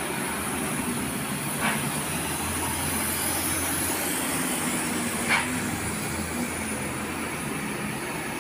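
Heavy trucks' diesel engines running steadily as they pass, with two brief sharp sounds about three and a half seconds apart.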